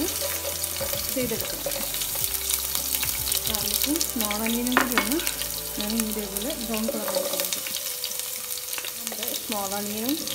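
Chopped garlic, and then sliced shallots, sizzling as they fry in hot fat in a saucepan. The spatula stirs against the pan now and then.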